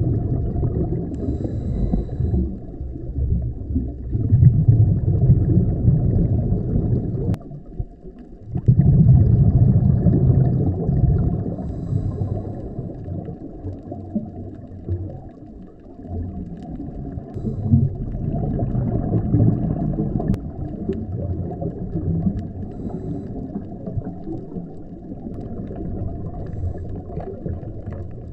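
Scuba diver's exhaled regulator bubbles gurgling past an underwater camera, heard as a muffled low wash of water noise. It comes in surges every few seconds, one for each breath out, with quieter gaps between.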